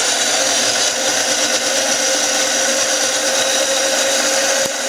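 Ninja Auto-iQ personal blender running steadily at full speed, blending a smoothie in its cup.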